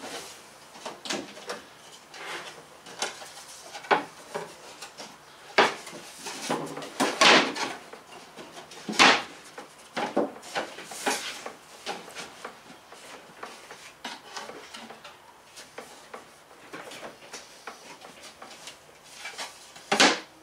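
Plywood cabinet face and doors being fitted into place by hand: irregular wooden knocks, taps and light scraping. The loudest bumps come about seven and nine seconds in and again just before the end.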